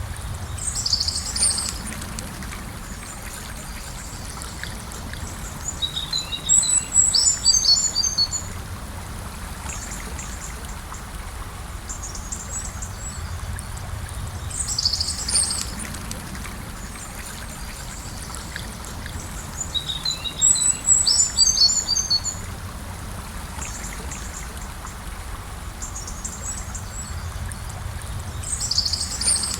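Gentle river flowing steadily, with a songbird calling and singing over it: short high chirps and quick runs of notes repeating every several seconds.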